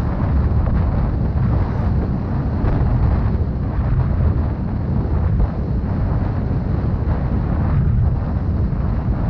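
Wind rushing over the microphone on a moving Yamaha Mio Gravis scooter, with the scooter's single-cylinder engine running underneath, steady throughout.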